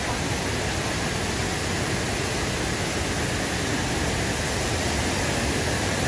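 Steady rush of waterfall cascades pouring into a pool, an even hiss with no breaks.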